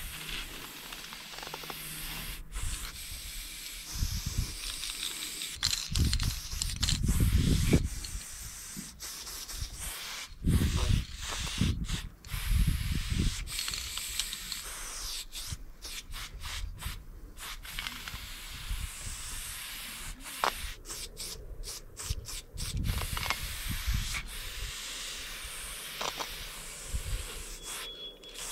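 Aerosol spray paint can hissing in repeated short spurts, stopping and starting as outlines are sprayed. A few low rumbles come and go underneath.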